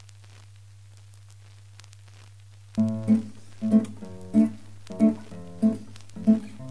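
A faint steady low hum, then about three seconds in an acoustic guitar begins strumming chords in a regular rhythm as background music.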